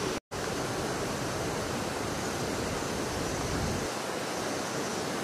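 A steady rushing noise with no distinct events. It cuts out for a moment just after the start, and its deepest rumble falls away a little before the end.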